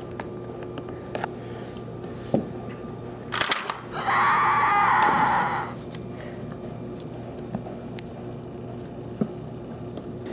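A loud scream about four seconds in, lasting under two seconds, just after a few sharp clicks, over a steady low hum.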